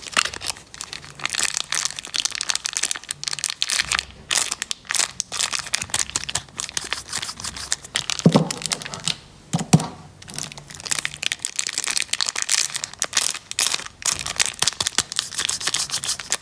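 Plastic candy wrappers crinkling and crackling as they are handled, a dense run of small crackles, with two dull knocks about halfway through.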